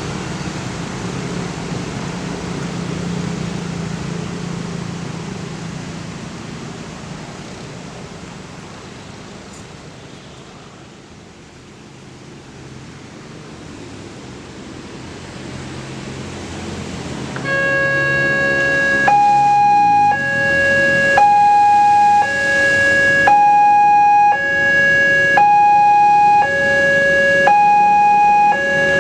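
Low rumble of a passing train fading away, then, about two-thirds of the way in, an Indonesian railway level-crossing alarm starts: a loud electronic two-tone signal alternating between a low and a high tone about once a second, warning that a train is coming and the barriers are closing.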